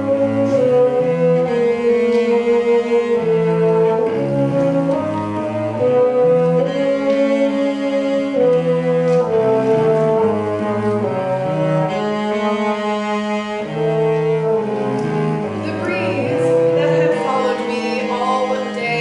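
Bassoon and cello playing a duet: a held upper line over a lower line that steps through shorter notes.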